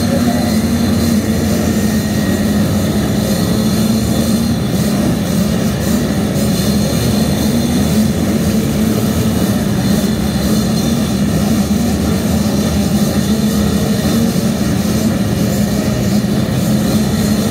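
A pack of youth motocross bikes running together at the starting gate, their engines blending into one steady drone while the riders wait for the start.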